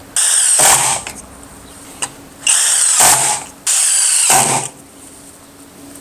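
Kobalt 24V brushless impact driver running in three short bursts, driving drywall screws, the last two close together.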